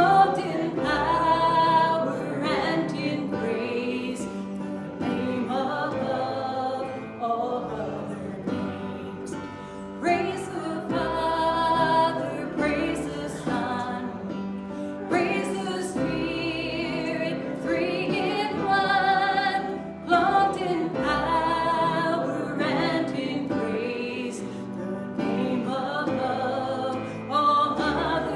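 Worship song: voices singing with vibrato over instrumental accompaniment that holds sustained lower notes.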